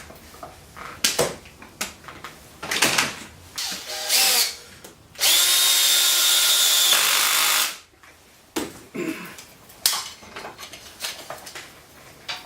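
Power drill spinning in a few short bursts, then one steady run of about two and a half seconds around the middle, followed by scattered clicks and knocks of handling.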